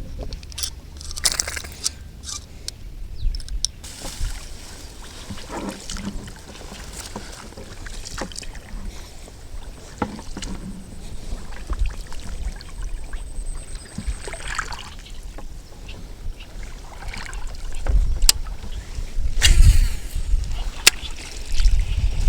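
Wind buffeting the microphone with water sloshing and splashing, broken by scattered clicks and handling knocks, louder near the end.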